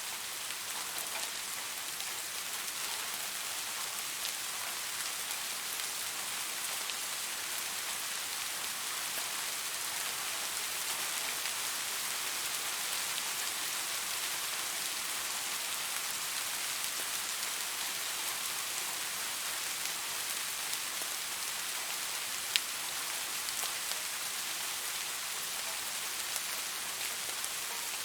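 Steady rain falling: a dense, even hiss with scattered drops ticking through it, and one sharper drop clicking about three-quarters of the way through.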